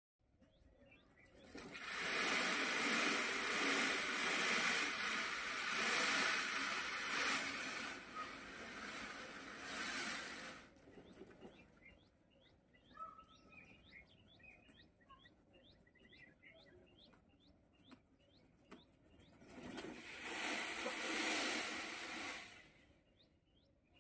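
Indian peacock in full display shivering its raised train: a loud dry rustling of quivering feathers in two long bouts, the first for about nine seconds and a shorter one near the end. Between the bouts, small birds chirp with quick, repeated falling notes.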